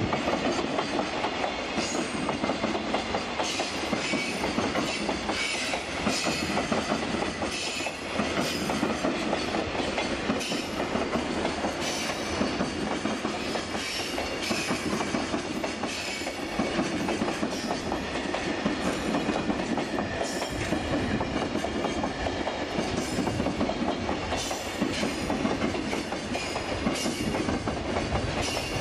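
Freight train of loaded container flatcars rolling steadily past, the wheels clicking over the rail joints in a continuous clickety-clack.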